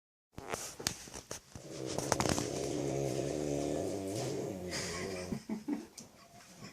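A woman snoring: one long, drawn-out snore with a wavering pitch, lasting about four seconds. Several sharp clicks come during the first two seconds.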